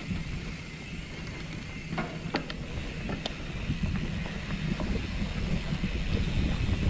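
Riding noise from a hardtail mountain bike on a trail: a steady low rumble of tyres and wind on the microphone, with a few sharp clicks and rattles about two to three seconds in, growing louder toward the end.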